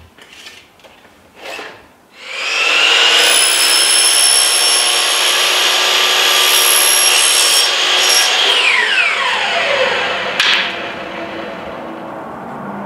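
Hitachi compound miter saw starting up about two seconds in and running with a loud, steady whine as it cuts through a rigid-foam ThermalBuck piece. The trigger is let go about eight seconds in and the motor winds down with a falling whine, followed by a single knock.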